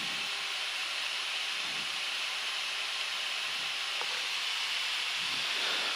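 Steady rushing hiss of air in the cockpit of a Gulfstream G-IV jet in climb: airflow and air-conditioning noise on the flight deck.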